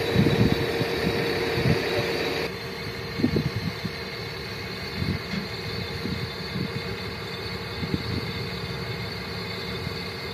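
Excavator's diesel engine idling, a steady drone that drops in level about two and a half seconds in.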